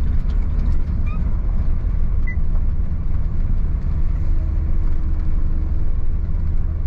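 Steady low rumble of a vehicle driving along the road.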